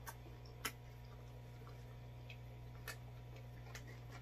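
Mouth-full chewing: a few sharp, wet mouth clicks and smacks, three of them louder, about the first second and about three seconds in, over a low steady hum.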